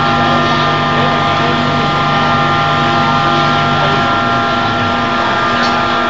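A fire engine's pump running steadily as a high-pressure hose sprays water, giving a drone of several held tones over a broad hiss. A lower hum under it stops about five seconds in.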